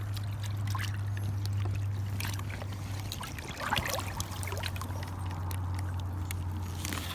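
Water trickling and lapping around a float tube, with scattered small clicks and splashes and a louder splash a little past the middle, over a steady low hum.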